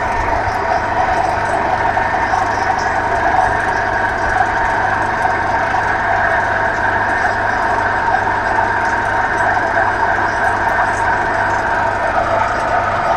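Heavy piling machinery (crane and its power pack) running steadily: a loud continuous engine drone with a steady high hum over it.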